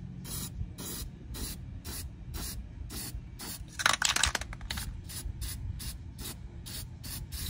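Aerosol can of Rust-Oleum Rust Reformer spray paint spraying in short repeated bursts, about two or three a second, with a brief louder burst of noise about four seconds in.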